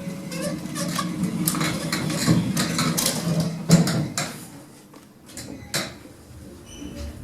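Hospital passenger lift doors sliding shut, a rattling slide with several clicks and clunks. It goes quieter about four and a half seconds in, with a couple of sharp clicks after that.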